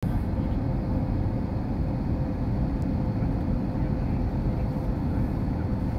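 Airliner in flight heard from inside the passenger cabin: a steady rumble of engine and airflow noise, with a faint steady hum.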